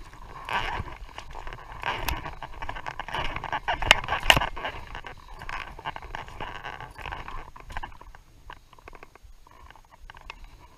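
Footsteps crunching over loose stones and cobbles, with stones clattering and two sharp knocks about four seconds in; the crunching thins out over the last few seconds.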